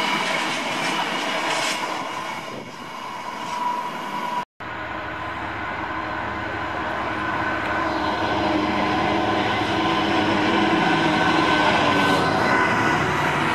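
Freight train hopper wagons rolling past, with steady wheel-and-rail noise and a few thin ringing tones. After a sudden cut about four and a half seconds in, a diesel freight locomotive approaches. Its engine and wheel noise grow steadily louder until it passes near the end.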